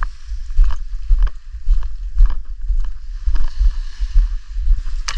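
Footsteps walking down a dirt path onto a pebble beach, about two steps a second, each with a dull thump of the handheld camera, over a steady hiss.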